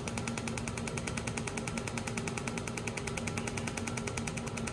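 Pulsed fiber laser welder firing a rapid, even train of sharp snaps, about nine a second, as it lays down filler weld by hand. A steady hum runs underneath.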